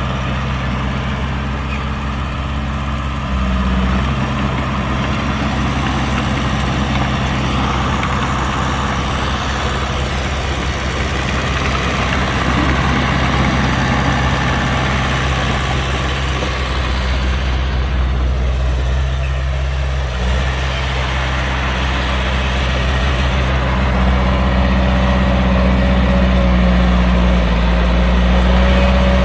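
Heavy diesel engines of earthmoving machinery running steadily. The sound steps up in loudness about three seconds in and grows louder again near the end.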